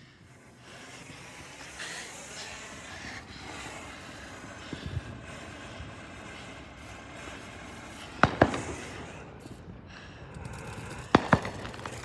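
Fireworks going off: a couple of sharp bangs about eight seconds in and two more near the end, over steady background noise.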